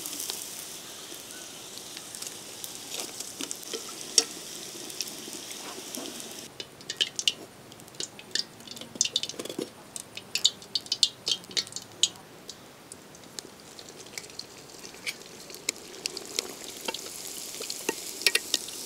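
Hot oil sizzling steadily as a sweet stuffed poori deep-fries in an iron kadai, with oil spooned over it to make it puff up. About six seconds in, the steady sizzle drops away to scattered sharp crackles and pops of frying oil for several seconds, then builds again near the end.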